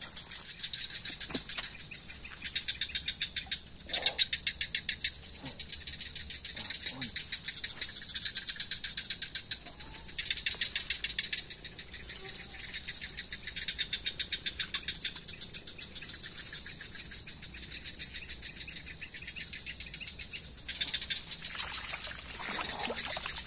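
Night insects: crickets trilling in rapid pulsed bursts of about a second each, over a steady high-pitched insect buzz. Near the end, a louder scuffing noise.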